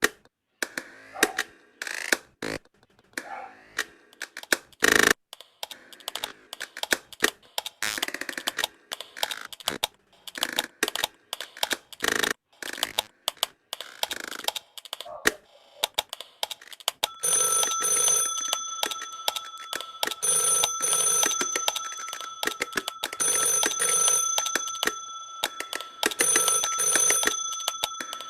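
A run of sharp household clicks and taps, like switches, a plug and keys, then about two-thirds of the way in an electronic ringer starts, ringing in repeated bursts of about two seconds with short pauses between them.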